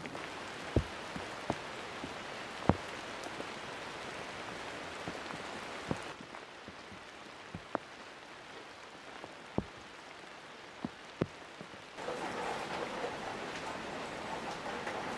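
Steady rain falling on wet ground, with single heavy drops landing sharply every second or two. The hiss gets quieter about six seconds in and louder again near the end.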